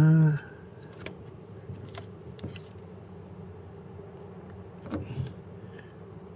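Faint clicks and light scraping as a multimeter test probe is worked against the prongs of a plug and the contacts of a receptacle, after a short low buzzing tone right at the start.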